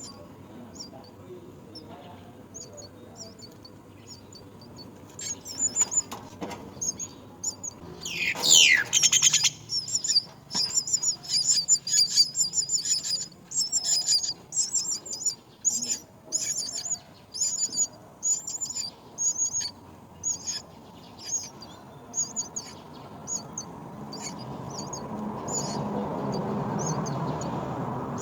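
Young birds cheeping at the nest: rapid, short, high-pitched chirps, several a second, starting about five seconds in. There is a loud falling call and a dense flurry around eight seconds in, and the chirps thin out later. A low rushing noise swells near the end.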